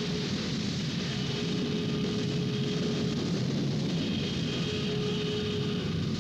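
Film score music: a steady, noisy drone with a held note that fades in and out several times.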